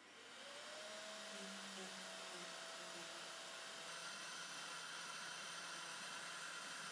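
Carvera Air desktop CNC starting up: the spindle spins up with a rising whine in the first second, then it and the dust-collection vacuum run on as a steady whirring hiss.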